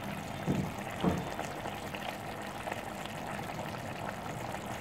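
Chicken curry simmering in an open aluminium pot on a gas stove, a steady bubbling hiss, with two brief soft low sounds about half a second and a second in.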